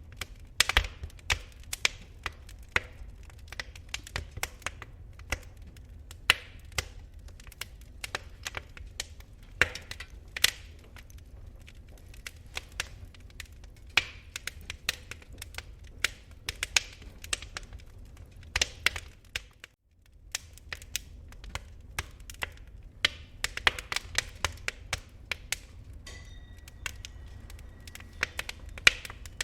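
Fireplace fire of slow-burning embers crackling, with frequent irregular sharp pops over a low rumble. The sound drops out briefly about two-thirds of the way in, then the crackling resumes.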